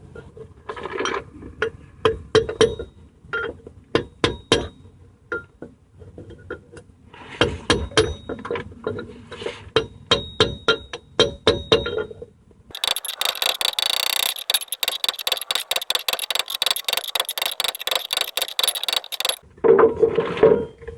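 Steel hammer blows ringing on metal as a bearing is driven into a Dana 30 axle, first as separate taps. For the last third it becomes a dense, rapid run of strikes lasting several seconds.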